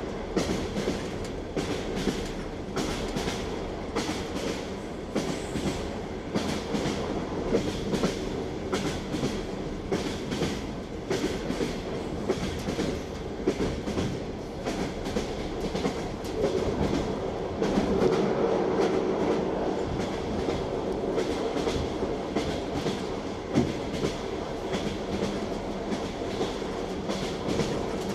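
Train running on rails: the wheels clack over rail joints again and again over a steady rumble, growing a little louder about two-thirds of the way through.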